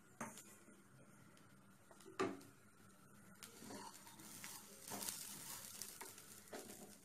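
Wooden spatula stirring and scraping rice as it fries in a nonstick pan, with a faint sizzle, strongest in the second half. Two short knocks come in the first couple of seconds.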